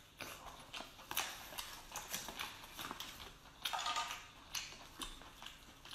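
Close-up eating sounds: wet smacks, sucks and sharp clicks as meat is sucked from a large crab claw, with a longer noisy rush a little past halfway.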